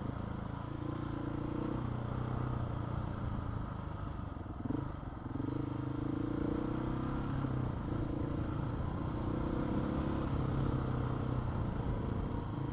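Motorcycle engine running steadily while riding on a dirt road. The engine note dips briefly and picks up again about five seconds in.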